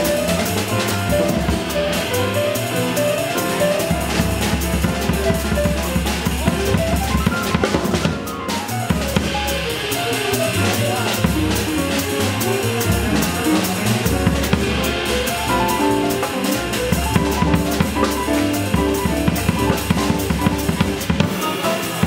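Live jazz piano trio playing: upright piano, plucked upright double bass and drum kit with cymbals together.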